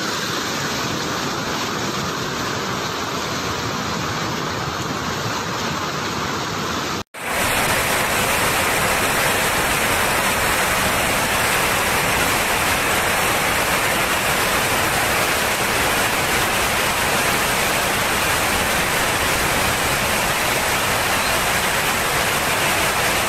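Steady rushing of a fast, muddy flood river. It cuts out for a moment about seven seconds in and comes back a little louder.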